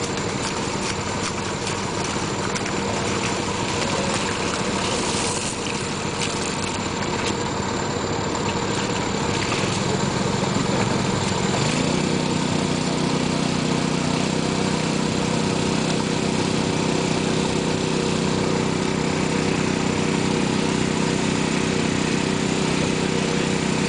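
Small petrol-engine water pump running steadily, pushing water through a hose down a hand-turned drill rod. Its note becomes louder and steadier about halfway through, and a few knocks come in the first half.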